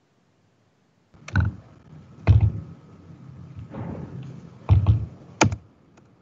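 Clicks and taps from a computer keyboard and mouse being worked close to the microphone. They start about a second in: about six sharp strikes at irregular intervals, the loudest about two seconds in and near the end.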